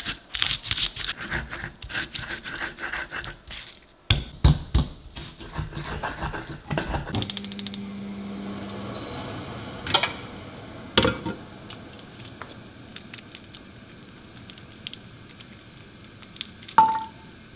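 Stone pestle grinding and pounding chilli, shallots, garlic and salt in a stone mortar (Indonesian cobek and ulekan), scraping strokes followed by several heavy knocks of stone on stone. Then a gas burner runs with a low steady hiss, and a metal pan is set down on the grate with a ringing clank near the end.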